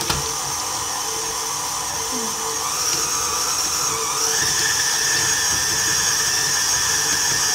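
Electric tilt-head stand mixer starting up and running with a steady motor whine as it mixes chocolate chunks into cookie dough. Its pitch steps up about four seconds in as the speed is raised.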